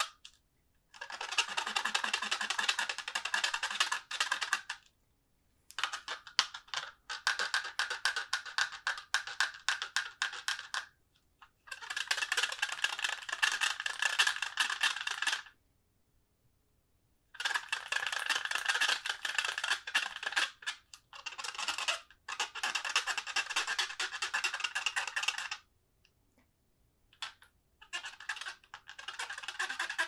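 Fast squeaky rubbing: dense runs of quick back-and-forth strokes, each run lasting two to five seconds, with short pauses between them.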